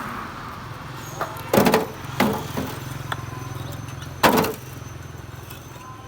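A steady low mechanical hum with several sharp knocks or bangs over it, the loudest about a second and a half in, just after two seconds, and just past four seconds.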